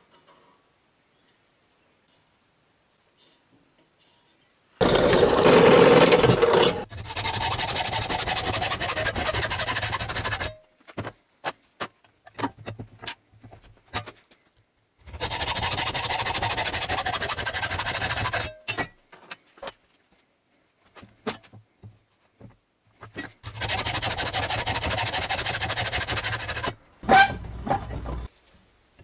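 Electric arc welding a fuel fitting into place: three long runs of steady hissing noise, each starting and stopping sharply, the first louder for its opening couple of seconds. Short metallic clicks and knocks come between the runs.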